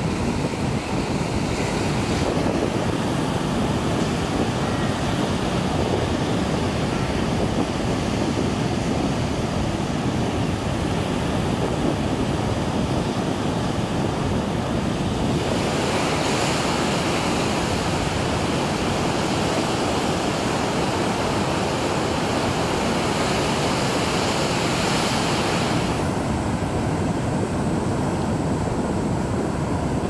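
Surf washing over a rocky shore: a steady rushing hiss, with wind on the microphone adding a low rumble. The hiss grows brighter for about ten seconds past the middle.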